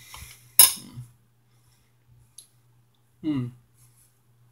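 Wet mouth noises of someone chewing sticky raw honeycomb: a sharp smack about half a second in, a faint click later, then a short hummed "mm" falling in pitch near the end.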